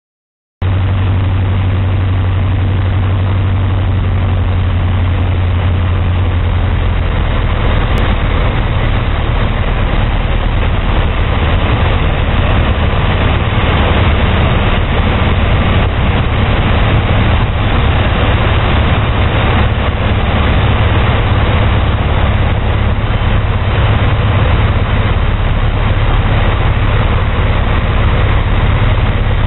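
Zenair CH-300's Lycoming O-320 four-cylinder engine and two-blade metal propeller droning steadily in flight, heard inside the cockpit, with wind noise over it. The sound cuts in about half a second in.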